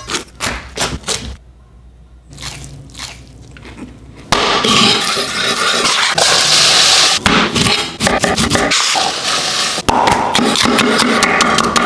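Kitchen knife chopping and scraping on a wooden cutting board, loud and dense with many quick strokes from about four seconds in, as bell peppers are cut up. A few sharp crackles come in the first second or so.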